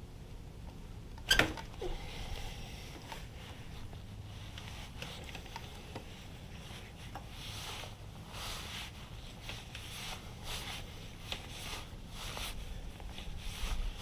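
Hand tools and parts being handled during motorcycle repair: one sharp click about a second in, then scattered small clicks and rubbing over a low steady hum.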